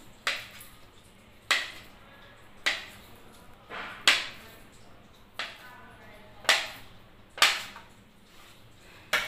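Kitchen knife slicing a log of kneaded chhena into pieces, each cut ending in a sharp knock as the blade meets the tray: about eight knocks, a little over a second apart.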